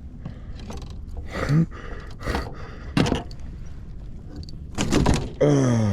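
A few scattered knocks and thunks, as of gear or a fish bumping against a kayak, with a brief voiced exclamation near the end.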